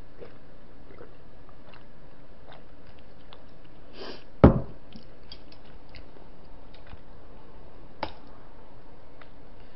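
A drinking glass set down on a table with one loud knock about halfway through. A sharper, lighter tap of chopsticks comes near the end, with faint small clicks of eating in between.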